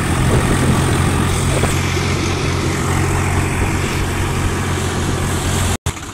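Swaraj 735 FE tractor's diesel engine running steadily under way, a constant low drone. The sound cuts out for an instant just before the end.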